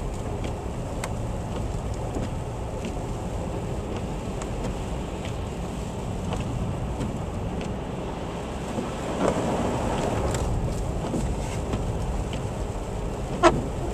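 Steady low rumble of a vehicle moving on a road, with scattered light ticks and one brief sharp sound near the end.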